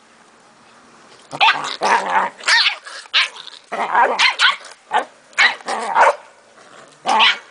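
Cardigan Welsh Corgis barking in rough play, a run of about eight sharp barks starting after a quiet first second.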